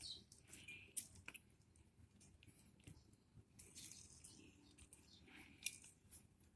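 Near silence with faint scattered small clicks and soft squishes: a halved lime being squeezed by hand over a glass.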